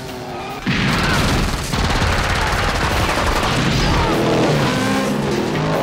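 Action-film soundtrack: a sudden, dense clatter of gunfire and an explosion breaks in about two-thirds of a second in and keeps going, mixed over the music score.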